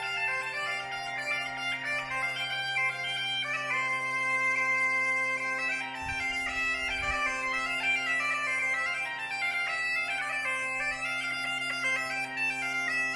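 Bagpipe music: steady drones held under a chanter melody.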